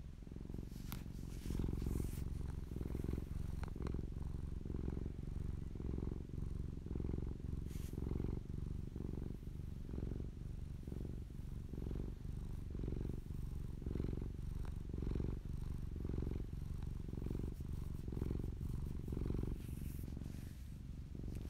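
Domestic cat purring steadily, the low purr swelling and easing in an even rhythm with each breath.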